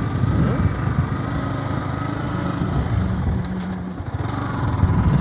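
Yamaha R15 single-cylinder motorcycle engine running while riding, a steady engine drone that eases off briefly about four seconds in and then picks up again.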